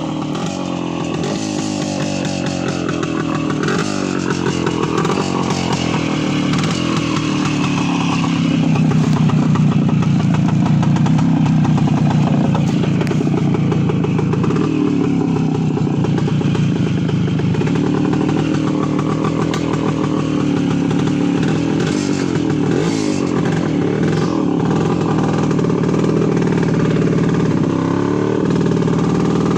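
Voskhod 3M motorcycle's single-cylinder two-stroke engine running under way. The engine note keeps rising and falling with the throttle, and grows louder over the first several seconds.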